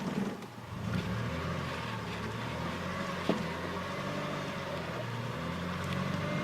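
Car engine and road noise heard from inside a moving car, a steady low rumble that grows louder about a second in, with one sharp click about three seconds in.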